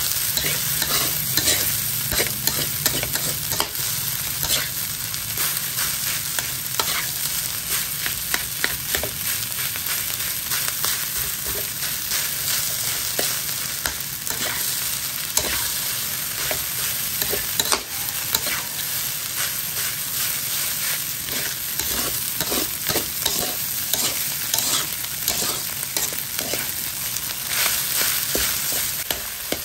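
Garlic fried rice with egg sizzling in a metal wok while a metal spatula stirs and tosses it, with frequent quick scrapes and clicks of the spatula against the pan over a steady hiss.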